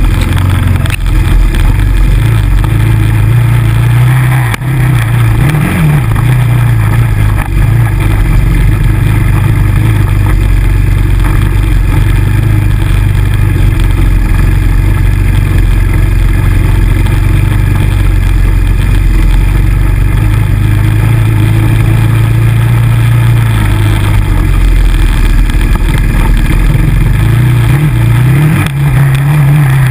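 ATV engine running hard and loud on a rough dirt trail, its pitch rising and falling with the throttle, over a steady rushing noise.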